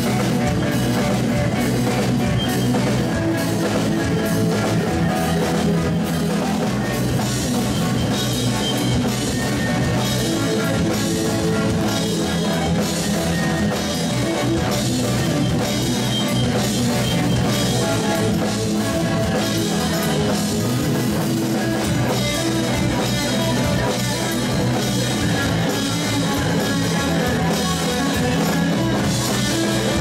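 Live rock band playing: drum kit with cymbals driving a steady beat under electric guitar and bass guitar, loud and even throughout.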